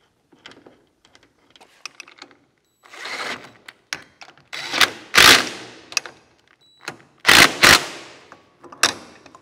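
DeWalt cordless impact driver hammering in short bursts as it drives the bolts of a swivel caster mounting plate into a steel toolbox. A few light handling clicks come first, then about four bursts, the loudest around the middle and near the end.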